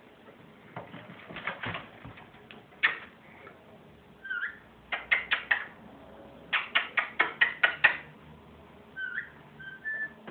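Ringneck parakeet laughing: runs of short, rapid staccato notes, about six a second, the longer run in the middle, with a few brief chirps between.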